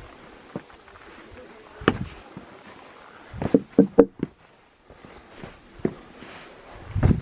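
Footsteps of a hiker on a trail: scattered thuds, with a quick run of short squeaky notes about halfway through and a heavier thud near the end.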